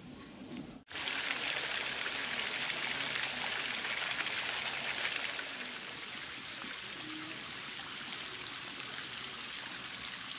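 Small waterfall streaming down over mossy rock and splashing: a steady rushing hiss that comes in suddenly about a second in and eases slightly in the second half.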